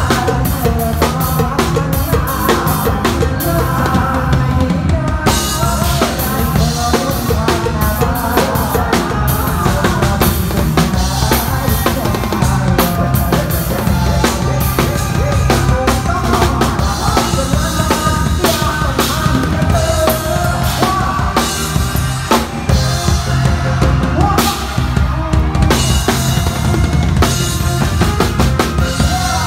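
Live band music with a drum kit loud and close: steady kick drum, snare backbeat and cymbals driving a Thai pop song, with singing over the top.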